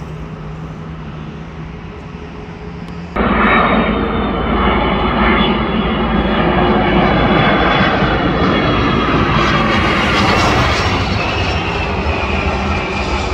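About three seconds of steady road-side background noise, then an abrupt cut to an Airbus A330 airliner on final approach passing low overhead. Its jet engines give a loud rumble with a high whine that slowly falls in pitch.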